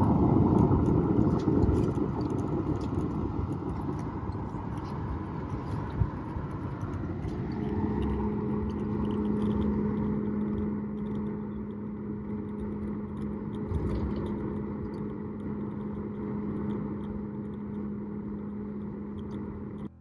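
Jet airliner noise heard from inside the cabin: engines and rushing air, loud at first and easing off, with a steady hum setting in about eight seconds in.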